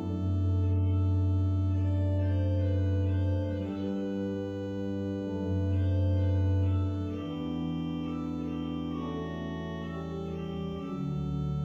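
Church organ played from a multi-manual console: slow, sustained chords over a deep held bass note. The chords change a few times, and it is louder for the first few seconds and again around six seconds in.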